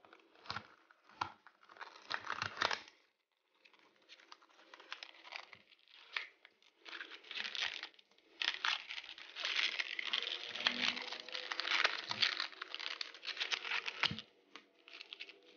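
Cardboard box and clear plastic packaging of a headlamp being opened and handled, sped up: dense crinkling and tearing with quick clicks and a few light knocks on the wooden table.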